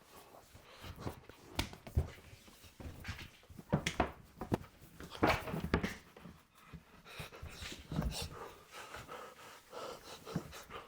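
A person panting and breathing heavily in short, irregular breaths.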